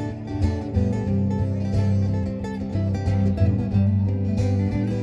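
Band music without vocals: an instrumental passage led by guitar over a bass line and a steady beat.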